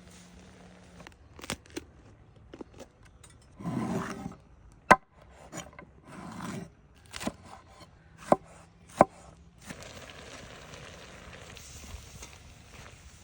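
Cooking utensils knocking and scraping while food is prepared: about half a dozen sharp knocks, the loudest about five seconds in, with two short rubbing scrapes around four and six seconds.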